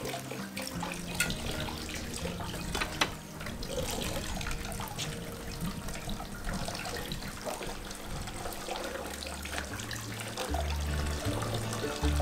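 Water from a fountain pump running and splashing steadily into the can buckets of a bicycle-rim water wheel that turns a rotisserie spit, with small irregular splashes and clicks. Background music with low bass notes comes in near the end.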